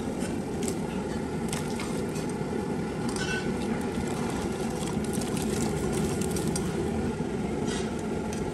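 Water at a rolling boil in a steel pot over a gas burner, a steady low rumble, with scattered light clicks and clinks as cauliflower florets tumble in and a wire strainer stirs them against the pot.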